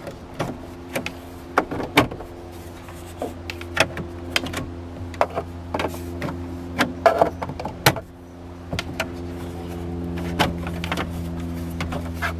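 Scattered clicks and snaps of a small screwdriver prying a plastic trim piece off a Jeep Wrangler's dash heater control panel, over a steady low hum.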